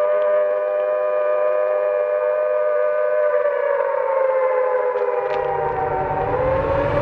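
Air-raid siren sounding one long, even wail; its pitch sags slightly and climbs back near the end. A low rumble joins it about five seconds in.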